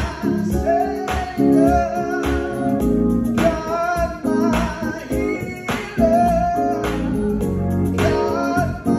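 Male gospel vocalist singing into a microphone with wavering, sustained notes, over organ and keyboard accompaniment.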